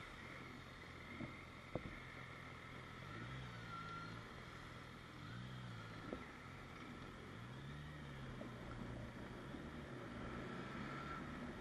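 Infiniti G37's V6 engine and road noise heard faintly inside the car's cabin while driving, the engine note rising and falling a few times as the car speeds up and slows. A single sharp click about two seconds in.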